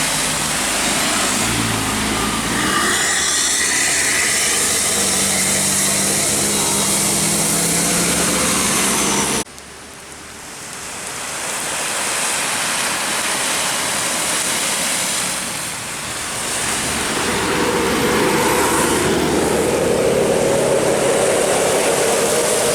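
Road traffic with a large bus engine running. The sound drops off abruptly about nine seconds in, then swells again as another vehicle approaches.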